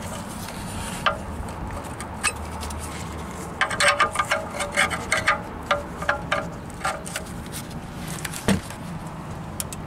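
Wrench tightening the oil drain plug on a 2006 Toyota Corolla's oil pan: light metallic clicks, a few scattered early on and then a quick run of them for about three seconds in the middle, over a steady low hum.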